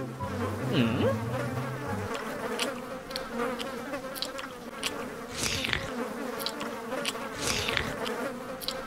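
A swarm of flies buzzing in a steady, wavering drone, with scattered short clicks. Bouncy music plays underneath at the start and fades out about two seconds in.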